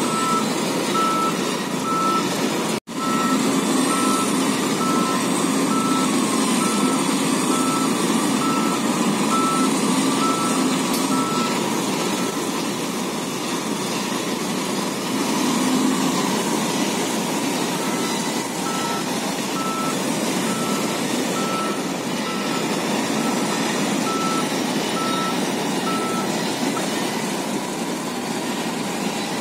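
A heavy machine's reverse alarm beeps at a steady pace over the running engines of a dump truck and a wheel loader. The beeping stops for several seconds near the middle and then resumes. The sound cuts out for an instant about 3 s in.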